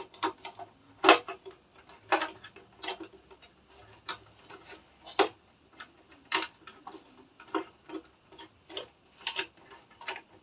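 Irregular hard-plastic clicks and knocks as a battery is pushed into a WPL D12 RC pickup and its parts are handled, a sharper knock about a second in and another about six seconds in.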